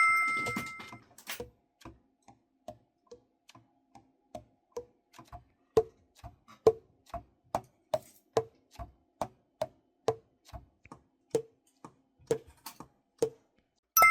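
Alto saxophone keys, on a Yamaha YAS-275, pressed and let go one after another, the pads closing with small clicks that each carry a short pitched pop, about two a second. A bright chime rings out at the start and fades within about a second.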